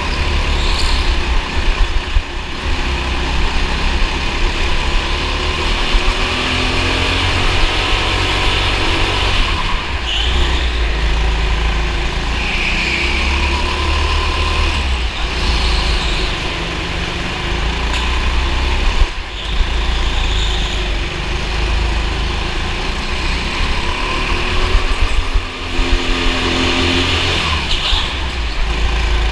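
Go-kart engine running at racing pace, rising and falling in pitch as the throttle comes on and off through the corners, over a constant deep rumble.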